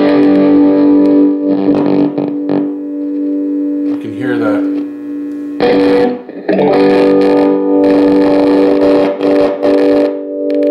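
Electric guitar chord through a Behringer GMX212 modelling combo amp, the signal dropping out abruptly and popping back in a few times. The owner puts the intermittent signal down to a dirty master volume pot.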